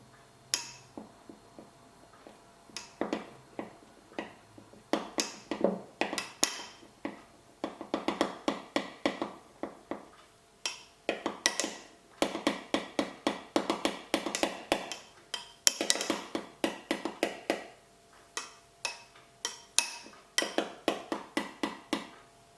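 A utensil clinking rapidly against a cup or bowl while a matcha drink is stirred, in quick runs of about eight strikes a second with short pauses between.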